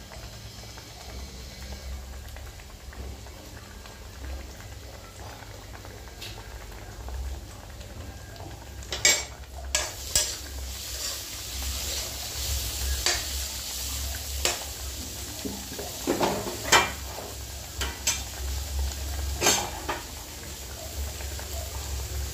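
Egg curry gravy simmering in a steel kadai, bubbling over a low steady hum. From about halfway through there are sharp pops or taps about once a second.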